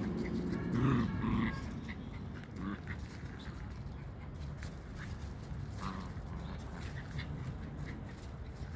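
Puppy making short vocal sounds during the first second and a half, with another brief one a little later, then small scattered clicks.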